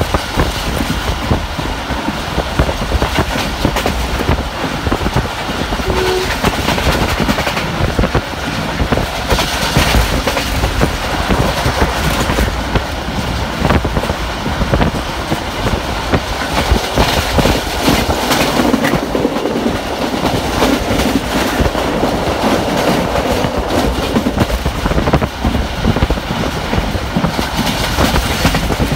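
Passenger train coach running at speed, heard from its window: a steady rush of wind and rolling noise. Over it runs the rapid clickety-clack of the wheels over the rail joints.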